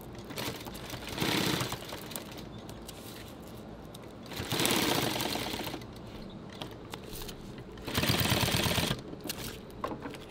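Industrial sewing machine stitching a webbing pull tab onto camouflage nylon in three quick runs of rapid, even stitching: a short burst about a second in, then longer runs about halfway and near the end.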